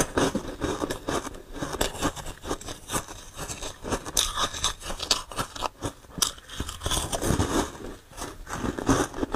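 Close-miked crunching and chewing of frozen foam ice, with many irregular crackling crunches as it is bitten and ground between the teeth.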